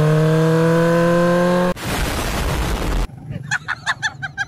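Small motorcycle engine accelerating, its pitch rising, until it cuts off suddenly under two seconds in. A short burst of loud rushing noise follows, then a run of short, high squawking calls.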